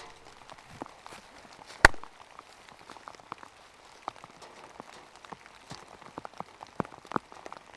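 Rain falling, heard as many scattered, irregular drips and taps, with one sharp, much louder tap about two seconds in.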